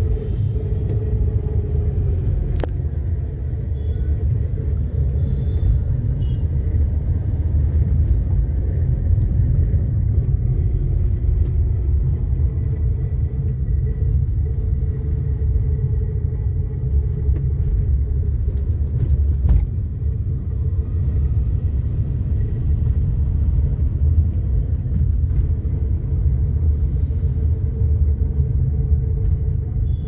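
Steady low rumble of road and engine noise inside a moving car's cabin, with two brief sharp clicks, one near the start and one about two-thirds of the way through.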